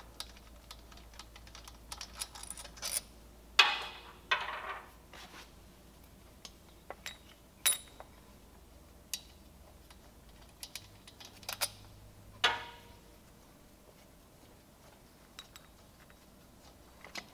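Scattered light metallic clicks and clinks as the thumb screws are backed out and a cam bearing puller tool is worked loose from an engine case, with a couple of longer metal rattles about four seconds in and again about twelve seconds in.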